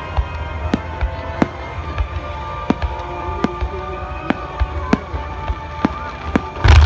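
Aerial fireworks bursting as sharp cracks, roughly two a second over a low rumble, with one much louder boom near the end. Music with held tones plays alongside.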